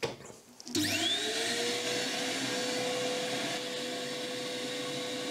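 Workshop dust extractor switched on with a click. Its motor spins up about a second in with a rising whine, then runs steadily with all the bleed holes in the baffle closed, pulling full suction through a CNC dust shoe so that the shoe's brushes are drawn inward.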